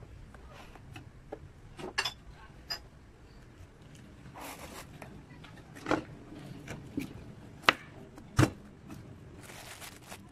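Plastic food tub and plastic cutting board being handled and set down on a wooden table: scattered clicks and knocks, the two loudest close together about three-quarters of the way in, with short scraping rustles between.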